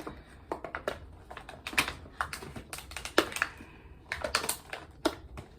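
Plastic packaging being pried and pulled apart by hand to get a tiny toy out: irregular sharp clicks and taps.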